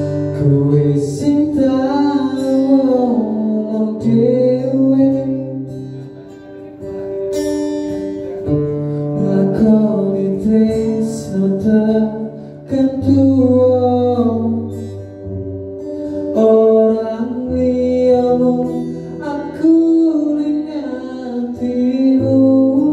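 A man singing a slow Javanese-language pop song, accompanying himself on an amplified acoustic guitar, with the sung phrases rising and falling over steady guitar chords.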